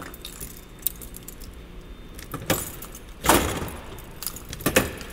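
Metal clicks, clunks and rattles from a steel rolling toolbox as its drawers and keyed locks are worked. There are a few light clicks, then a louder clunk with a brief rattle about two-thirds of the way in, and more clicks near the end.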